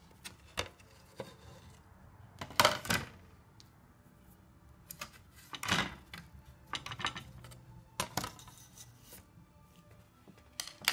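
Painting tools being handled on a tabletop: a scattered string of short clinks and knocks, like brushes against a glass jar and palette. The loudest come about two and a half seconds in and again near the middle.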